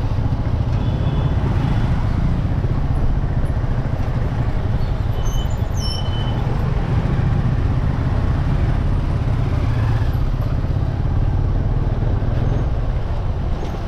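Motorcycle ride through street traffic: a loud, steady low rumble of engine and road noise at riding speed.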